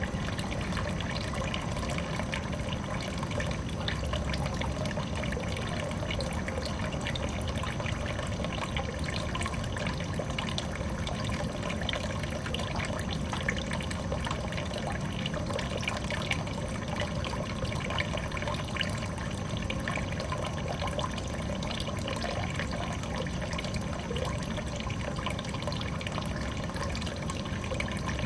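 Water falling and trickling steadily into a small garden pond, a continuous splashing patter.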